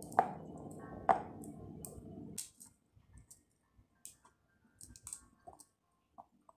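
Pomegranate seeds being picked out of the fruit by hand and dropped into a plastic container: a run of small clicks and squishy cracks, the two loudest near the start. A low background hum stops about two and a half seconds in.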